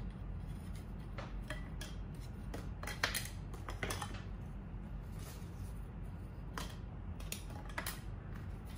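Small wooden herb markers clicking and tapping against bamboo-fibre plant pots as they are set into the pots one by one: a series of irregular light clicks, the sharpest about three seconds in.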